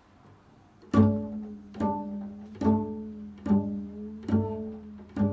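Double bass plucked pizzicato: after about a second of quiet, the same low note is plucked six times, roughly one pluck every 0.8 s, each ringing on into the next.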